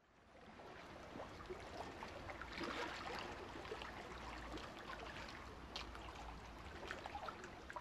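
Faint underwater ambience: a steady hiss scattered with many small, sharp clicks and crackles, fading in just after the start.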